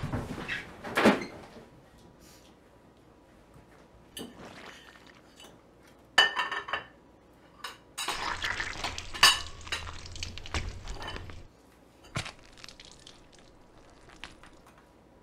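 A fork clinking and scraping on ceramic plates, and plates knocked and slid on a stone countertop: scattered clinks and knocks, with a louder knock about a second in and a busier stretch of clatter in the middle.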